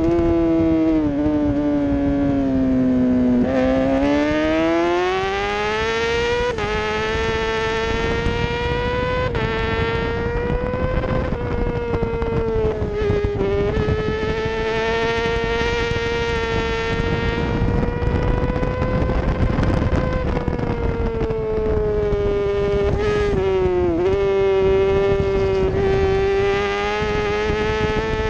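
Middleweight superbike engine at high revs, heard from a camera on the bike with wind noise underneath. The pitch falls over the first few seconds as the bike slows, climbs as it accelerates, then holds a high steady whine with brief sharp dips about 13 and 24 seconds in.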